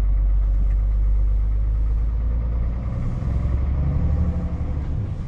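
Scania S 680's V8 diesel engine running at low revs, heard from inside the cab while the truck drives slowly. The low engine note swells about three seconds in.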